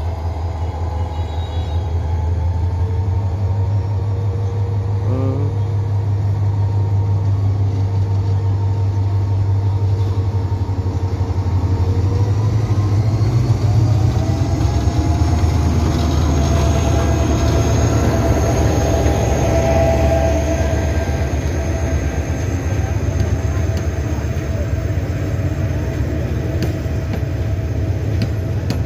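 Diesel locomotive's engine rumbling as it approaches and passes close by at the head of a passenger train, loudest about halfway through. The coaches then roll past on the rails, with a faint high whine from the wheels.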